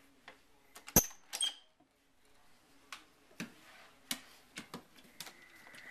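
A sharp metallic clack with a brief ring about a second in, then a second clack, as a door is worked. After that come scattered light clicks and taps of a dog's claws on a hardwood floor.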